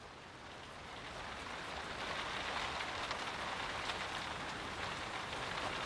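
Steady rain falling, fading in over about the first two seconds and then holding level, with a fine patter of drops.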